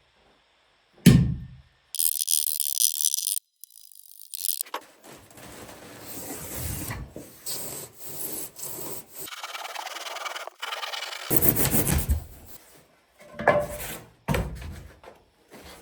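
Rough scraping and rasping of a tool working against wood, in long stretches, broken by a sharp thump about a second in and louder knocks near the end.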